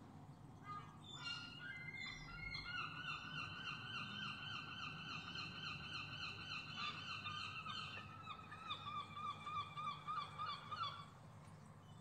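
Gull calling: a long run of rapid, repeated yelping notes lasting about ten seconds, with louder, more widely spaced notes near the end.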